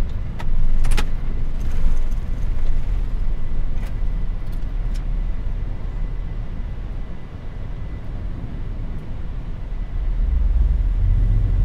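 Steady low rumble of engines and airflow in a Boeing 747-400 freighter's cockpit during the initial climb after liftoff, with a few sharp clicks in the first five seconds. The low rumble swells louder near the end.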